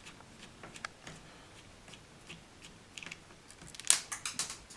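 Faint clicks of a small screw being backed out of a laptop's plastic screen housing with a screwdriver, then a quick run of sharper clicks and taps near the end.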